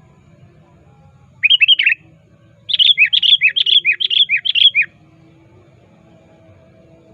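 Male sooty-headed bulbul (kutilang) calling to challenge a rival: a short burst of quick notes, then after a brief pause a longer run of about seven notes, each dropping in pitch.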